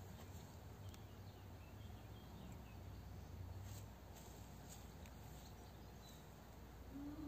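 Near-silent garden ambience: a steady low hum under faint outdoor noise, with a few faint distant bird chirps and soft clicks.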